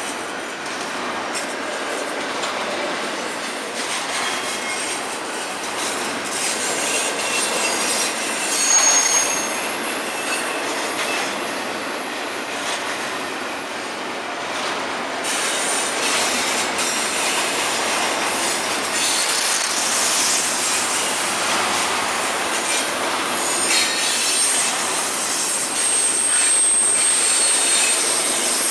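Double-stack intermodal freight cars rolling steadily past: continuous rumble and clatter of steel wheels on the rails, with thin high-pitched wheel squeals coming and going, a brief one about a third of the way in and a longer one near the end.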